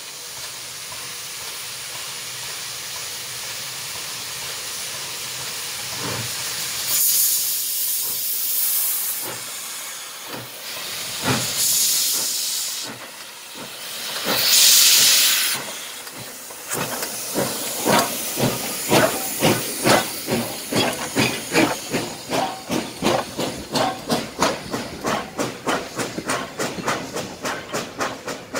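Soviet steam locomotive pulling away with a passenger train: a steady hiss of steam, then several loud blasts of venting steam, then regular exhaust chuffs that come faster and faster as the engine gathers speed.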